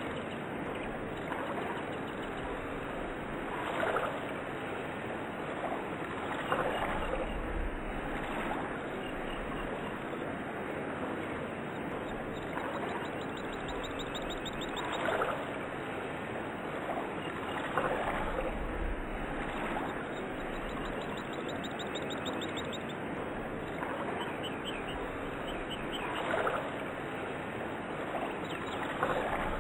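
A steady rush of flowing water, swelling briefly every few seconds, with faint chirps now and then.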